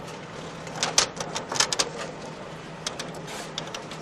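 Office machines clattering in irregular runs of sharp, typewriter-like clicks, loudest about a second in, over a steady low electrical hum.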